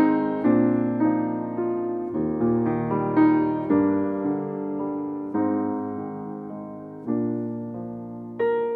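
Background piano music: notes and chords struck in turn, each one decaying.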